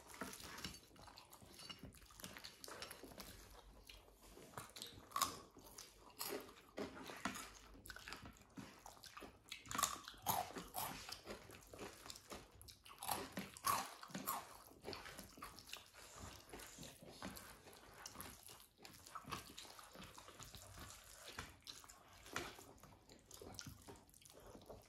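People eating khichuri with fried sides: faint chewing and mouth sounds with scattered short, crisp crunches of bites.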